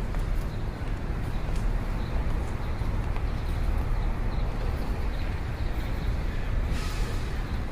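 Steady low rumble of outdoor background noise, with faint short high chirps recurring throughout and a brief hiss about seven seconds in.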